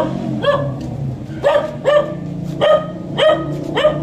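A dog barking repeatedly, about seven short sharp barks, some coming in quick pairs.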